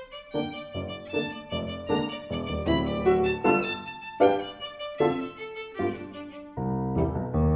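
Instrumental jazz music: a melody of distinct separate notes over a bass line, with a fuller, lower sustained accompaniment coming in about six and a half seconds in.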